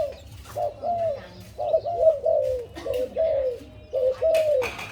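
Zebra doves (Malay doves) cooing: a rapid run of short, soft, arched coo notes, at times two birds overlapping. A brief rustling burst comes near the end.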